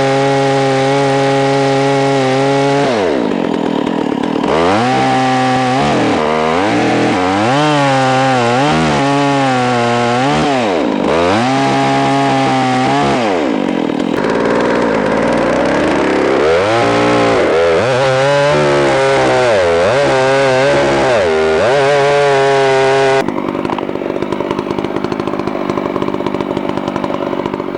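Stihl MS660 two-stroke chainsaw with a rip chain on a long bar, ripping a log lengthwise. The engine pitch rises and sags again and again as the chain loads up in the cut. About 23 seconds in it drops suddenly to a lower, rougher idle.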